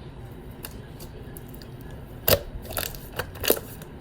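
Homemade glue slime being rolled and pressed on a table: quiet sticky handling sounds with a few short clicks, the two sharpest a little past two seconds in and about a second later.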